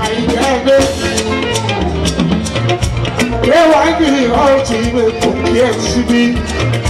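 Live fuji band music: a singing voice over a busy beat of drums and hand percussion, with electric guitar and bass.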